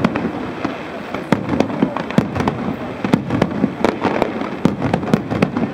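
Aerial firework shells bursting in a rapid, irregular string of sharp bangs, several a second, over a continuous noisy background.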